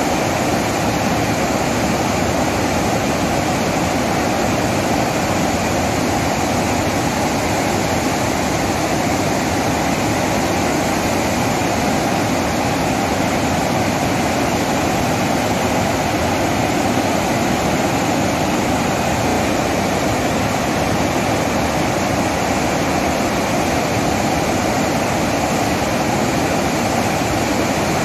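Floodwater rushing steadily through the open spillway gates of Hirakud Dam and crashing into the churning pool below.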